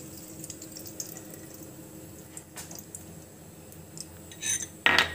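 Melted ghee poured from a glass bowl into a large metal pot, a faint liquid trickle with small ticks. Near the end comes one sharp knock.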